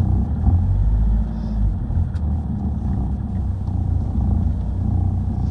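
Camper van engine and road noise heard from inside the cab while driving slowly: a steady low rumble.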